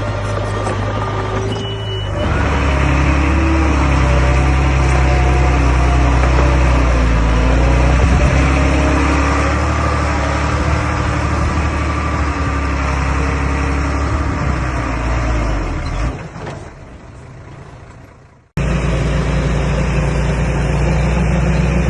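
Komatsu D21A bulldozer's diesel engine running steadily, with wavering higher tones over the engine note while it works. About two seconds in it gets louder and deeper; from about sixteen seconds it fades away, then cuts back in suddenly, running, near the end.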